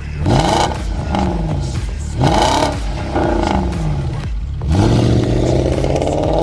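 Car engine revved several times, its pitch rising and falling with each blip, then holding a steady higher note for the last second and a half.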